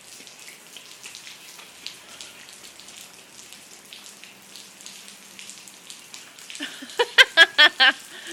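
Steady light rain hissing and pattering, with fine drop ticks. Near the end a voice gives a quick run of about six short, high-pitched calls, louder than the rain.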